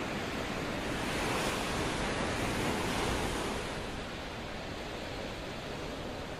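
Steady rush of sea and wind noise, swelling louder about a second in and easing off after about four seconds.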